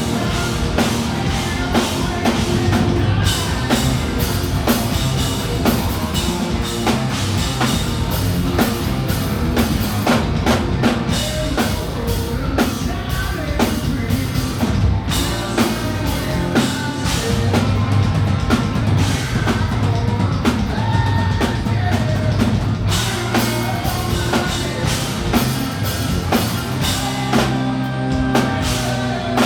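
Live rock band playing: drum kit, guitars and bass with singing, loud and steady.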